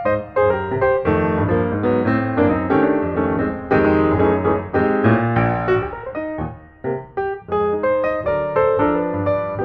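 Background piano music, a quick run of notes several a second.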